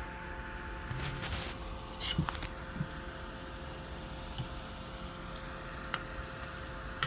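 Light clicks and taps of small tools and parts being handled at a soldering bench, the strongest cluster about two seconds in, over a steady low electrical hum.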